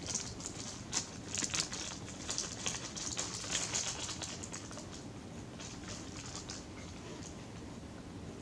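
Light clicking and scratching of small electronic parts being handled: resistor leads and jumper wire ends pushed into and pulled from a plastic solderless breadboard. The clicks are busiest in the first few seconds and thin out after about five seconds.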